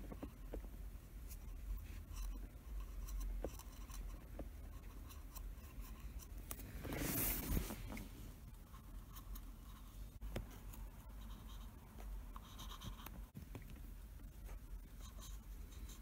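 Faint scratching and rubbing of a cotton swab spreading silicone grease along the chrome shift gate and shift lever of a Mercedes-Benz W113 230SL, with scattered small clicks and a louder rustle about seven seconds in.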